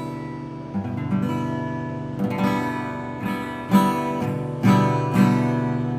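Acoustic guitar strumming a few chords with no singing, the last chords left to ring and fade out as the song ends.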